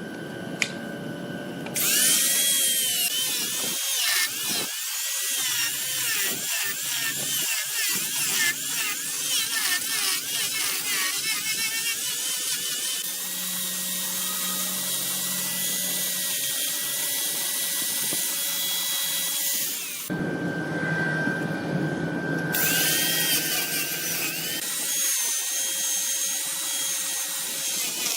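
Wood lathe running with a turning tool cutting into the spinning wood: a loud, steady scraping that starts about two seconds in, stops for a couple of seconds about twenty seconds in, then starts again. A thin steady whine from the lathe runs under the quieter moments.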